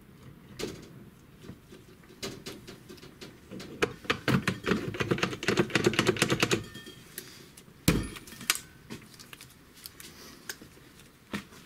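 Metal parts of a Vespa PX engine case clicking and tapping as the two crankcase halves are fitted together by hand. A burst of rapid clicking comes in the middle, and one heavier knock follows about eight seconds in.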